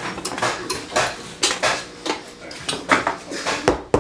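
Irregular clinks and knocks of metal tools and of a boot being handled on a bench stand. Near the end come the first hammer blows, as nailing of the rubber heel cap onto the leather heel base begins.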